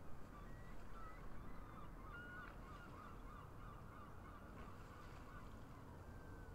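A flock of birds calling, many short overlapping calls repeated over and over, busiest a couple of seconds in, over a low steady rumble.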